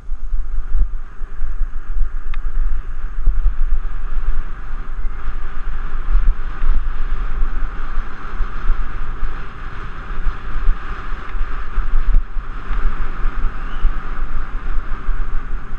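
Wind buffeting an action camera's microphone while riding a bicycle along a concrete road: a loud, steady rushing with a deep fluttering rumble underneath.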